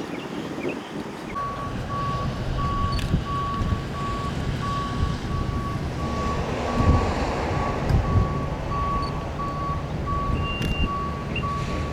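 A vehicle's backup alarm beeping at one steady pitch, about two beeps a second, starting a little over a second in, over the low rumble of a vehicle and wind noise, with two heavier knocks in the middle.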